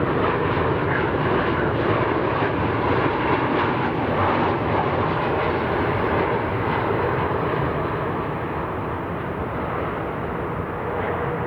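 Jet airliner engines running steadily: a constant rush of noise with a steady whine, easing a little after about eight seconds.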